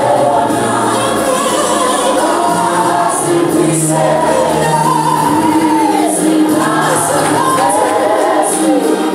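A church congregation singing a hymn together, many voices in harmony holding long notes.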